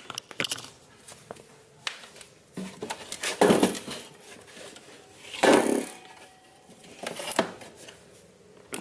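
Handling noise: light clicks and knocks with three louder rustling bursts about two seconds apart.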